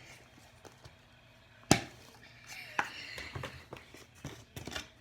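Slime-making containers and utensils being handled and knocked on a table: one sharp knock almost two seconds in, then scattered softer clicks and taps.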